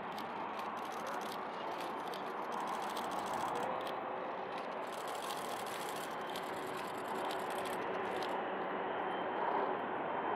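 Four Pratt & Whitney F117 turbofans of a Boeing C-17A Globemaster III on final approach, a steady jet rumble with a faint whine, swelling a little near the end.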